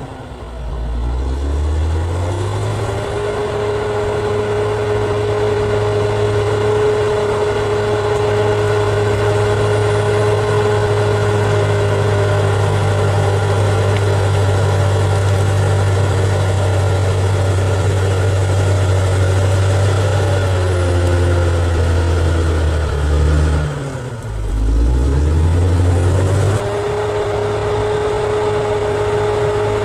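Bulldozer's diesel engine working hard. It revs up over the first couple of seconds and holds a steady pitch, then sags about twenty seconds in and dips briefly. It revs back up a couple of seconds later and holds steady again.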